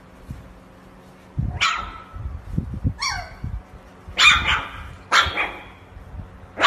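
Husky puppy barking: about five short, yappy barks roughly a second apart, one of them a yelp that slides down in pitch.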